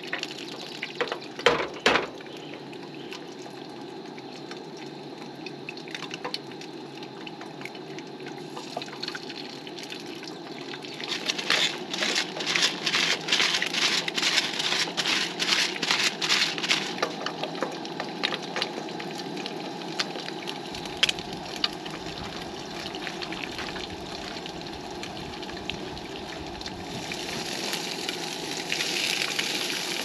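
Eggs frying in a nonstick pan on a camp stove, with a steady burner hiss and sizzle under everything. Two sharp knocks near the start come as eggs are cracked on the pan, and a stretch of rapid clicking about halfway through is a pepper grinder being twisted over the pan. The sizzle grows brighter near the end.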